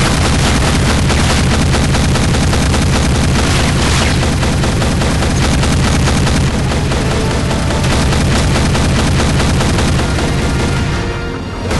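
AA-12 automatic shotgun firing in continuous rapid full-auto fire, the shots coming close together in a dense volley. The firing stops about eleven seconds in.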